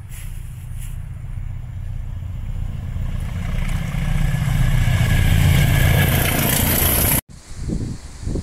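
Diesel locomotive hauling coaches approaching, its engine rumble and the wheel noise on the rails growing steadily louder until it cuts off suddenly about seven seconds in. After that, wind buffets the microphone.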